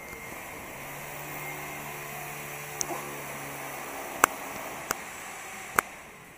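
Background noise inside a building under construction: a steady hiss with a low hum from about one to four seconds in, and four sharp knocks.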